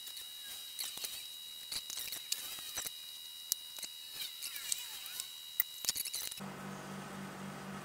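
Kitchen knife slicing through a skin-on fish fillet on a plastic cutting board: irregular light clicks and taps as the blade meets the board and the cut pieces are handled.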